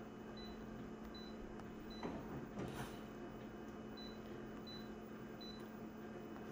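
Office copier's touch panel giving short high beeps as a finger taps through its menus, six in all, over a low steady hum.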